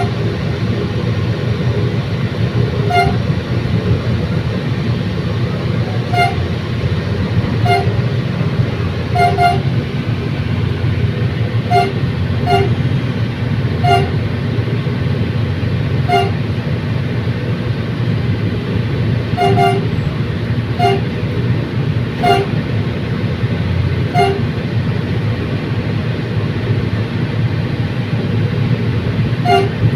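Bicol commuter train running, with a steady low rumble. Short pitched toots sound irregularly on top of it, every one to three seconds and sometimes in quick pairs.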